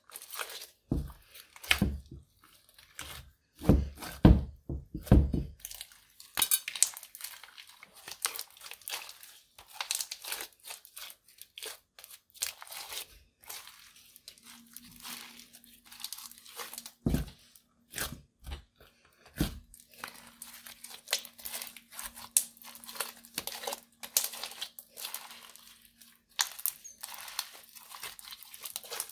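Clear slime mixed with crushed eyeshadow being squeezed, stretched and folded by hand: a continuous run of sticky crackles, pops and squelches, with a few heavier squishes, the loudest about four to five seconds in.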